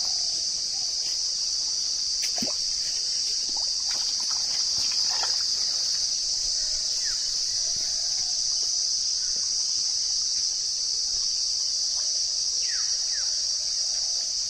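A steady, loud, high-pitched chorus of insects (crickets or cicadas) shrilling without a break, over the faint trickle of a small hill stream.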